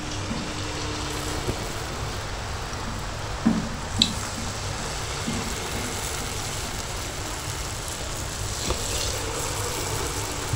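Palm-fruit batter fritters deep-frying in hot oil in a wide aluminium karahi: a steady sizzle as fresh spoonfuls of batter go in, with a couple of small knocks about three and a half and four seconds in.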